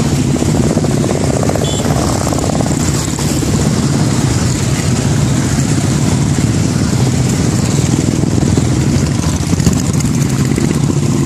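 Many motorcycles, largely Royal Enfield single-cylinder bikes, riding together at cruising speed: their engines blend into one steady, dense drone with no single bike standing out.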